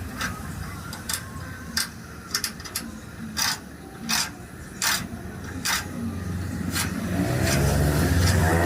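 A series of sharp knocks at uneven intervals, about one every half-second to second, from tool work on a scooter body, over a steady low hum. Near the end an engine comes up, rising in pitch and getting louder.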